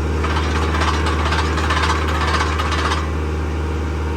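Tractor engine running steadily while a PTO-driven post hole auger bores into the ground, a gritty grinding noise over the engine for about three seconds that then stops.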